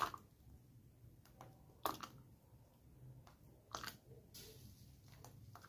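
Metal serving spoon clinking against a ceramic mug and a steel pot while hot atole is ladled into the mug: a few faint, sharp clicks, the clearest about every two seconds.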